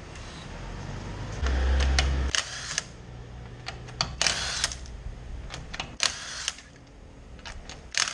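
A short low rumble about one and a half seconds in, then a run of sharp clicks and knocks with a few brief rushes of noise.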